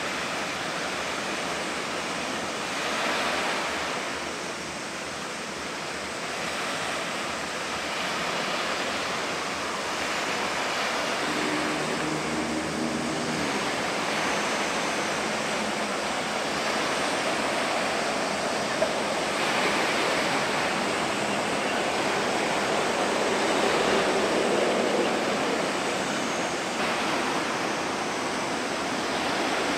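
Steady rushing of choppy sea water, swelling and easing slowly in loudness. A faint low hum comes in for a couple of seconds near the middle.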